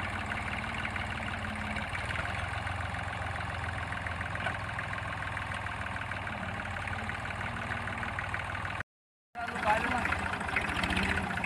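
Small diesel tractor engine running steadily while it pulls a cultivator through cut grass. About nine seconds in, the sound cuts out completely for a moment, then the engine is heard ticking over again with the tractor standing.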